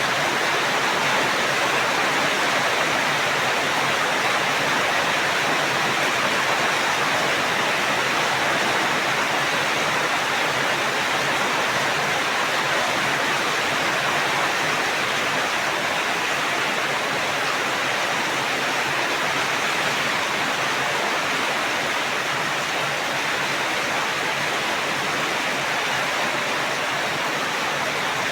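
Steady rain, an even, dense hiss that holds constant without distinct drops or thunder.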